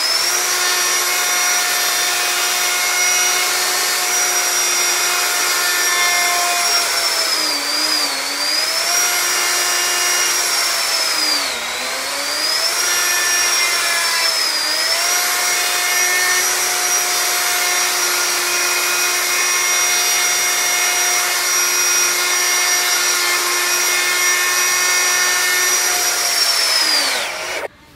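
Handheld electric wood router running at full speed, cutting into MDF board with a loud, high whine. Its pitch sags briefly a few times, and the motor winds down near the end as it is switched off.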